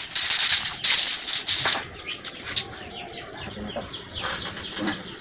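Two short bursts of rattling, scraping noise in the first two seconds, then quieter handling sounds: a steel tape measure being pulled out and laid along a steel truck-chassis beam.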